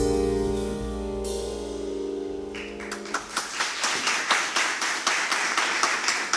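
A small instrumental band's final held chord rings out with bass underneath and fades. About three seconds in, audience applause starts and continues.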